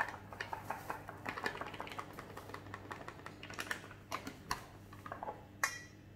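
Paper bag of whole-wheat flour crinkling and rustling as flour is poured from it into a ceramic mug: a run of small, irregular crackles, with one louder rustle near the end.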